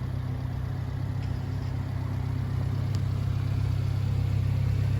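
Subaru Sambar mini truck's small four-cylinder engine idling steadily, growing slightly louder over the few seconds.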